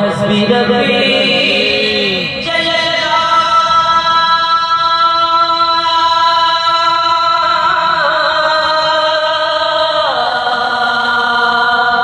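Singing of an Islamic devotional kalam, the voices holding long, steady notes and gliding from one note to the next a few times.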